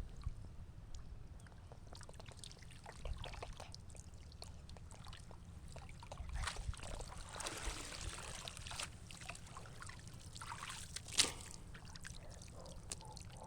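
Pond water splashing and dripping as a fishing net is worked through it, with scattered light knocks; the splashing is busiest in the middle, and one sharper knock comes near the end.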